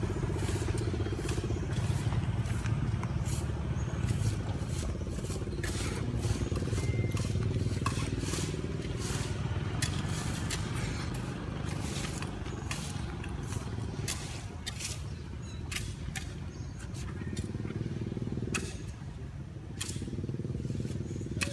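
A motorcycle engine running steadily close by, with scattered sharp clicks and crackles over it.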